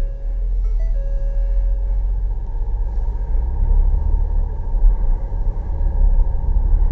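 Low, steady rumble of a vehicle on the move, with a few steady tones that change pitch and fade out within the first two seconds.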